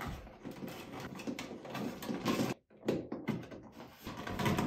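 Stiff electrical wires and plastic wall switches being pushed and folded by hand into a wall box: irregular scraping, rustling and small clicks, with a brief silent gap about halfway.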